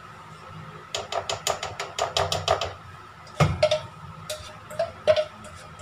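A spoon tapping and scraping inside a metal mixing bowl to get the last of the cake batter out: a quick run of light clicks, then a louder knock about three seconds in, followed by a few more taps with the bowl ringing briefly.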